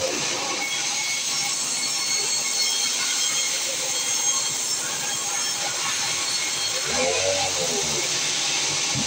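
Sawmill saw cutting through a log: a steady loud hiss with high squealing tones from the blade in the wood. About seven seconds in, a lower hum rises and falls in pitch for about a second.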